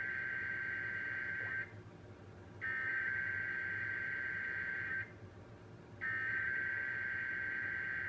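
Emergency Alert System SAME header: three bursts of digital data tones, each about two and a half seconds long and about a second apart, encoding the Required Monthly Test alert.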